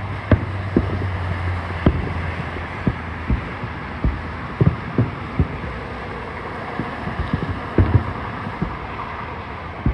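Fireworks bursting: about a dozen deep booms at uneven intervals, some in quick pairs, over a steady background rush, with a low hum in the first few seconds.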